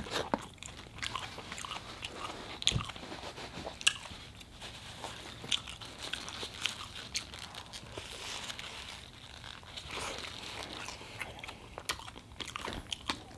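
A person biting and chewing food close to the microphone, with irregular crunches and wet mouth clicks.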